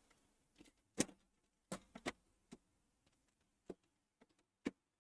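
A handful of sharp, separate clicks and taps, about eight in five seconds, from hands working on an open desktop PC tower. There is no steady fan or motor noise between them.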